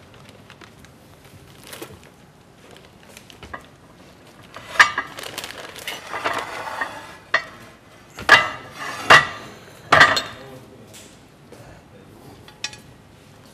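Utensils and dishes clinking and knocking on a kitchen counter: scattered sharp knocks, the loudest cluster from about eight to ten seconds in.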